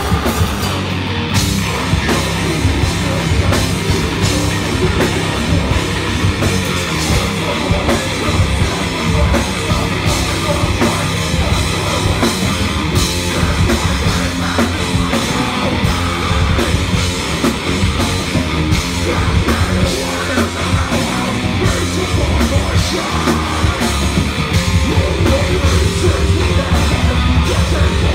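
Heavy metal band playing live: distorted electric guitar, bass guitar and drum kit, loud and continuous.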